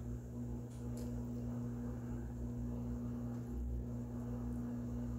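Steady low electrical hum under faint room hiss, with a couple of faint ticks about a second in.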